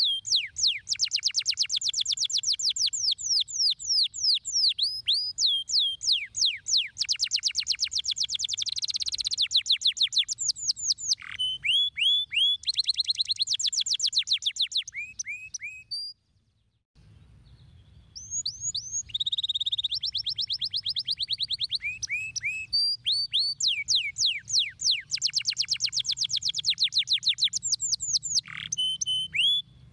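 Domestic canary singing: long rapid trills of quick downward-sweeping notes, changing from one repeated phrase to the next, with a pause of about a second near the middle before the song resumes.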